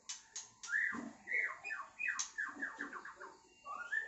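White-rumped shama, a Medan male, singing in short phrases: rising whistles, sharp clicks and a quick run of repeated falling notes in the middle. The bird has just finished its second moult and is singing again, but not yet in full voice.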